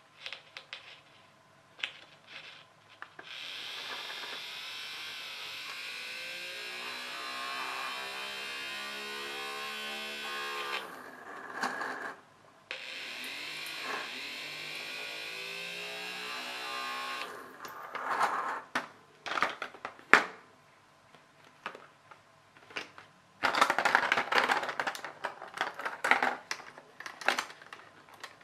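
Small toy DC motor of a snap-together electronics kit whirring steadily for several seconds, its pitch falling as it runs down. It starts again and runs a few seconds more. Plastic circuit pieces then click and clatter as they are snapped together on the base grid.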